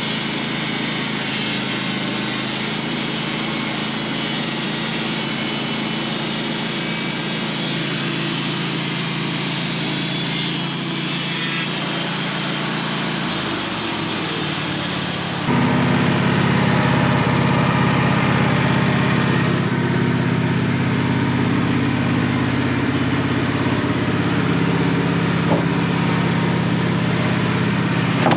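Band sawmill's engine running steadily as the blade saws through a spruce log. About halfway through the sound changes abruptly, becoming louder and deeper.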